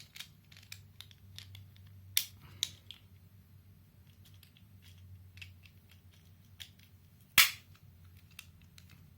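Small plastic casing of a Bluetooth car audio adapter handled and pressed back together: light clicks and taps, two sharper snaps about two seconds in, and one loud snap near the end as the parts click into place.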